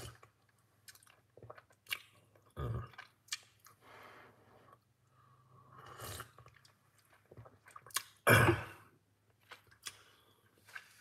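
A person sipping and swallowing a hot drink from a glass cup in several separate mouthfuls, the loudest about eight seconds in.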